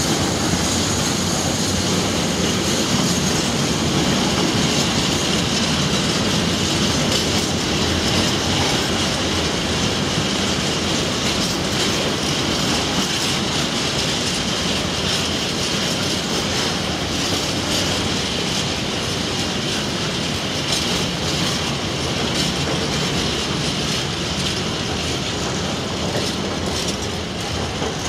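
Empty container flat wagons of a long freight train rolling past steadily, wheels clattering over rail joints with a steady high whine from the wheels on the rails. It eases a little near the end.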